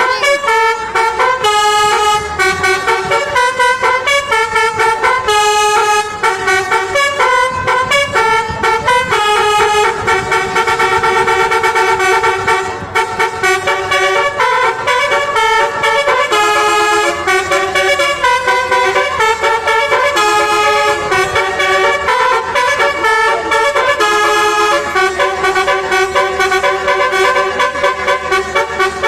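A bus's basuri musical horn playing a loud, fast tune in short stepped notes, with brief breaks between phrases.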